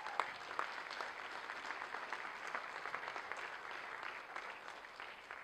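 Audience applause, many hands clapping at once, dying away near the end.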